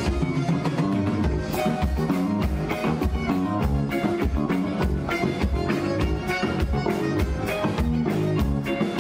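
Live gaúcho regional band playing: piano accordion over electric bass, electric guitar and a drum kit keeping a steady beat. The drums come in strongly about a second and a half in.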